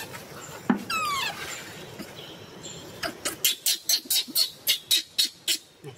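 Baby macaque calling: one falling squeal about a second in, then from about three seconds a fast run of short, sharp cries, about four a second.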